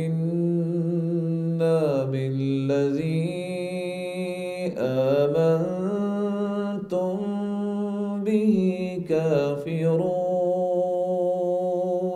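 A man's voice reciting the Quran in Arabic in slow, melodic tajweed chant, holding long notes that rise and fall over several drawn-out phrases.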